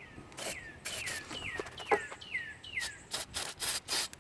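Short hissing bursts of an aerosol battery terminal protector being sprayed onto the battery terminals, while a bird calls a quick run of about six descending chirps in the first three seconds.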